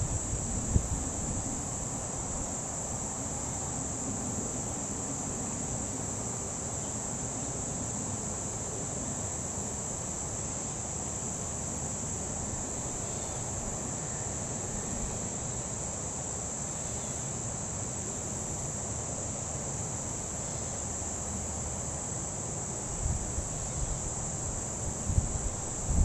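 Steady chorus of insects: a continuous high-pitched trill that does not let up. Low rumbles come in near the end.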